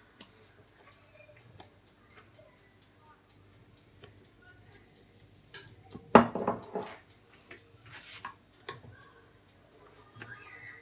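A metal spoon tapping and scraping against a glass baking dish as thick cream is spooned onto ladyfingers and spread, with small scattered clicks and one louder knock about six seconds in.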